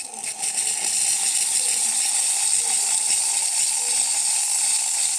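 Rancilio espresso machine's steam wand opened at full steam, giving a loud, steady hiss with a steady lower tone under it; the wand is working properly after the machine's service.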